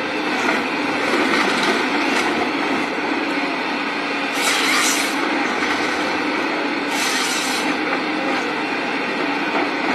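Tracked forestry harvester running steadily, its engine and hydraulics working the crane and harvester head, with two short bursts of high hiss about four and a half and seven seconds in.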